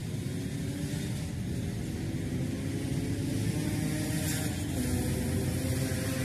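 Steady low rumble of outdoor ambience, with faint held notes of distant music underneath.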